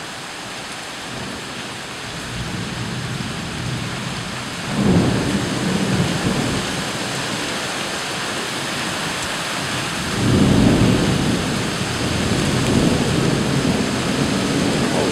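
Thunderstorm: rain falling steadily, with two long rolls of thunder, the first building about five seconds in and the second about ten seconds in.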